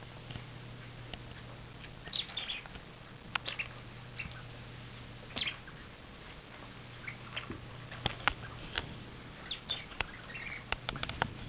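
Miniature bull terrier puppy playing with a plush hedgehog toy: short high squeaks, a dozen or so, scattered through, over a steady low hum.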